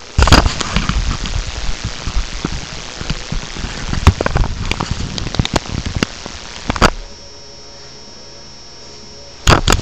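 Dense crackling and rustling close on the microphone, with scattered sharp knocks, as the webcam is handled and moved. It stops about seven seconds in, leaving a low steady hum, and one loud knock comes just before the end.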